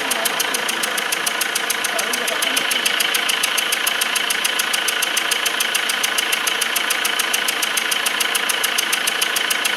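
Mercedes C220 CDI four-cylinder diesel engine running with a fast, regular ticking. This is the engine-noise complaint treated here with injector cleaning and new injector copper washers.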